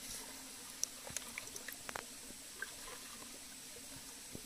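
Light splashing and dripping of water in a small plastic bucket as a hand reaches in to grab a snakehead fish, with scattered small taps and clicks.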